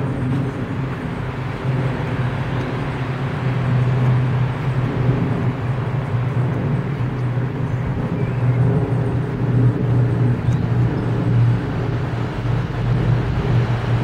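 Nissan X-Trail SUV's engine idling with a steady low hum.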